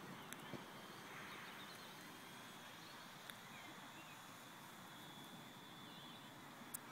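Near silence: faint outdoor ambience, a steady hiss with a faint high tone, a few faint clicks and a few brief faint chirps.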